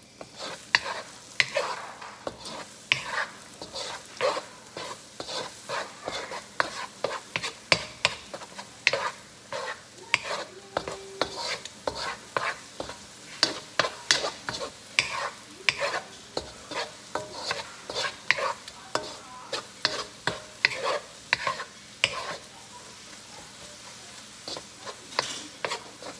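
Wooden spoon scraping and knocking against a wok as eggs are scrambled, roughly two strokes a second, over the steady sizzle of eggs frying in hot olive oil. The strokes thin out briefly near the end.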